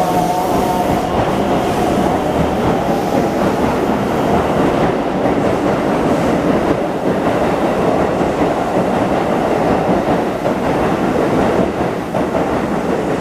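Train pulling out of a station and running on, with steady rolling noise of wheels on rail and some clatter. A squealing tone dies away about a second in.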